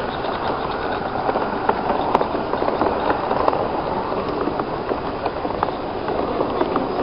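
Coaches of an SM32 garden railway train rolling past close by: a steady rumble of wheels on the track with scattered light clicks.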